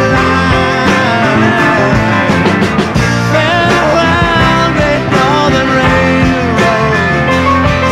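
A rock band playing an instrumental passage, a lead line sliding and bending in pitch over a steady full-band backing.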